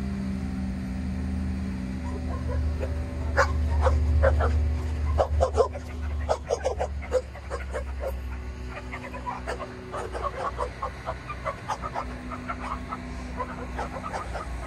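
Low, steady drone of the crane's diesel engine, easing off about six seconds in, under repeated short barks from a dog that start about three seconds in and go on in irregular bunches, loudest in the first few.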